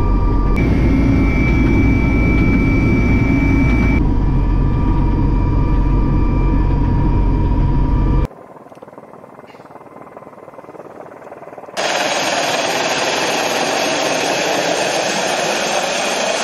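Helicopter heard from inside the cabin: a loud low rumble of rotor and engines with a steady turbine whine over it. About eight seconds in it cuts off abruptly to a quiet hiss, and about four seconds later a loud, steady rushing noise of a helicopter in flight takes over.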